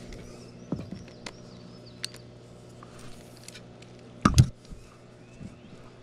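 Clicks and knocks of a fishing rod and reel being handled in a kayak, with a loud double knock about four seconds in, over a steady low hum.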